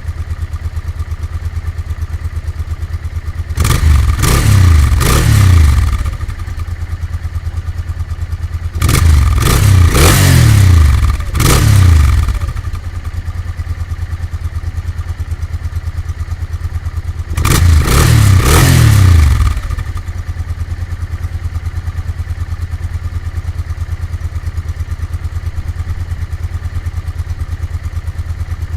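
Honda NTV 650 V-twin motorcycle engine breathing through a Motad aftermarket exhaust, idling steadily and revved three times, each rev rising and falling back to idle; the middle burst is longest, with several blips in quick succession.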